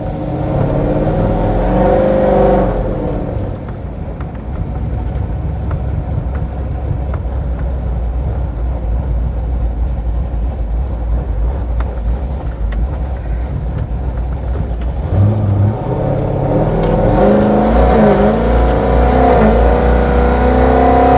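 Cammed V8 of a built C6 Corvette with headers and a full Corsa exhaust, heard from inside the cabin while driving. The exhaust note climbs as the car accelerates about two seconds in, settles to a steady low rumble while cruising, then climbs and wavers again from about fifteen seconds in.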